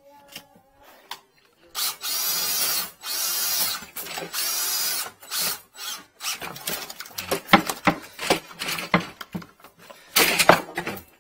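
A cordless drill spins a flexible-shaft drain cable in three short bursts, working at a clog in a 40 mm sink drain pipe. After the bursts come irregular clattering and knocking, loudest near the end.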